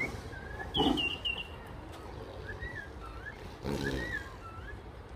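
Two short growls from an agitated white tiger, about a second in and again near four seconds, with small birds chirping throughout.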